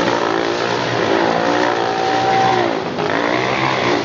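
Several Honda CRF dirt bikes' single-cylinder four-stroke engines revving together, their pitch rising and falling over and over as the throttles are worked.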